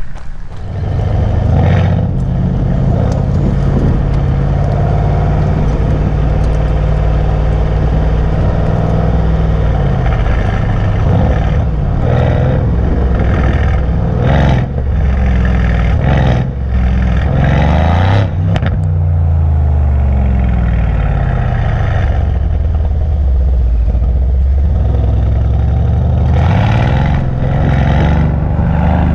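Mercedes-AMG C63 S twin-turbo V8 with a flap exhaust, its revs rising and falling several times. Sharp exhaust crackles and pops come between about halfway and two-thirds of the way through, and again near the end.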